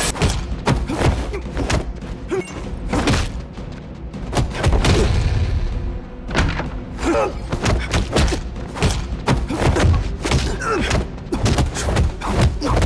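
Martial-arts film fight soundtrack: rapid, irregular punch and body-impact effects, thuds and heavier booms, landing over a dramatic score.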